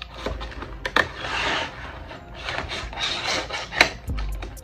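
A large knife scraping and sawing through a stiff clear plastic clamshell package, with two longer rasping strokes among sharp crackles and clicks of the plastic.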